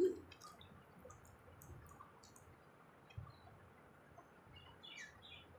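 Faint bird chirps over a quiet background, with a few small clicks; a short run of downward-gliding chirps comes near the end.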